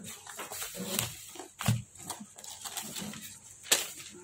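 Rustling and crackling as a cardboard box's flaps and bubble wrap are handled and a sheet of paper is pulled out and unfolded: an irregular run of crinkles and sharp clicks, with a few short low thuds and the loudest click near the end.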